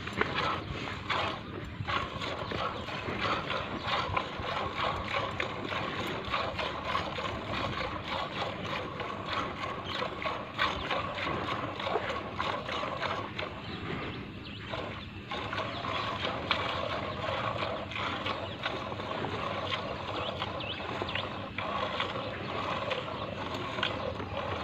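Milk squirting by hand from a cow's teats into a metal bucket: a quick, steady run of squirts hitting the milk and the bucket.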